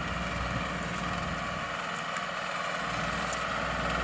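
Tractor engine running steadily while a round baler wraps a finished bale in the chamber before ejecting it.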